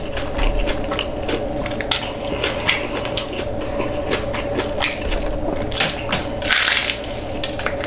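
Close-up chewing and crunching of hard-shell tacos: a run of small crisp crunches and wet chewing sounds, with a short louder hissing rustle about six and a half seconds in.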